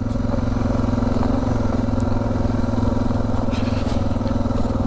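Single-cylinder dual-sport motorcycle engine running at a steady, even speed while riding, with a few light clicks about three and a half seconds in.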